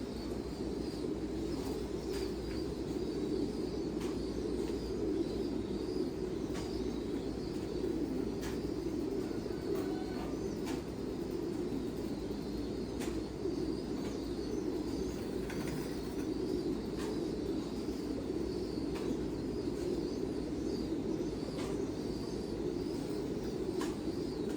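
Many pigeons cooing together, a steady low chorus with scattered light clicks and taps.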